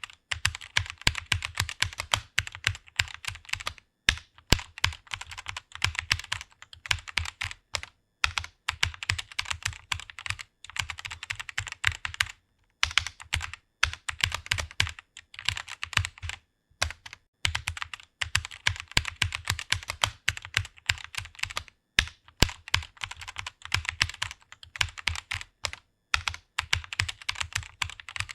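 Fast, continuous typing on a computer keyboard: rapid key clicks in runs broken by short pauses, with an occasional louder keystroke.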